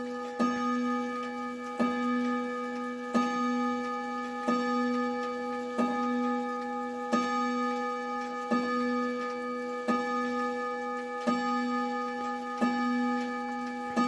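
Odo Jaquemar wall clock striking the hour on its chime rod: evenly spaced strikes about one every 1.4 seconds, each ringing on into the next.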